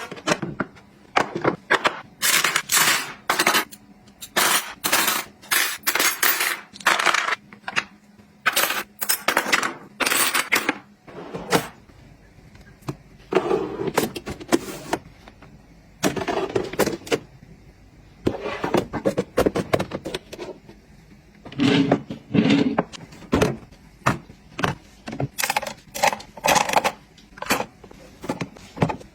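Household items being handled and set down by hand: an irregular run of crisp clicks, taps and rustles, with a few duller knocks.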